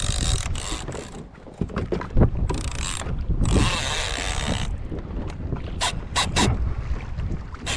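Wind buffeting the microphone over open water, with gusts of hiss from spray and chop. A few sharp mechanical clicks from the fishing reel come about six seconds in.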